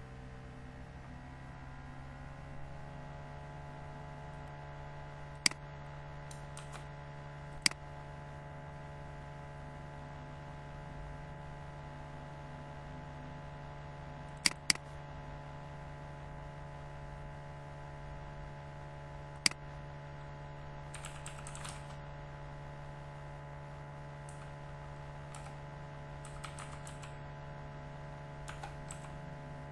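Computer keyboard typing over a steady electrical hum: five loud single clicks, two of them close together, then softer runs of key clicks in the second half.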